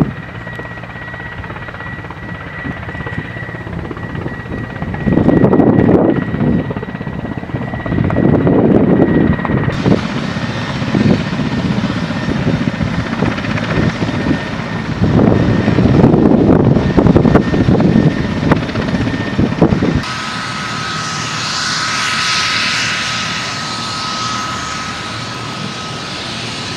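Mi-8-type twin-turbine helicopter running, turbine and main-rotor noise, with loud gusty surges from the rotor wash. The sound changes abruptly twice, and in the last part it is a steadier high turbine whine.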